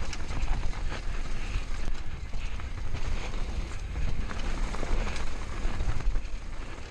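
Mountain bike descending a dirt trail at speed: tyres running over loose dirt, with frequent clicks and knocks as the bike rattles over bumps. Wind rumbles on the microphone throughout.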